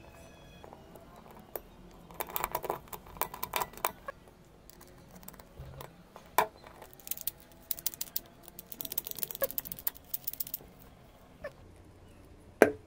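Metal parts of a cylindrical door-knob lock clicking and rattling as they are fitted together by hand, in bursts of quick clicks with single sharper clicks between, and a loud knock near the end.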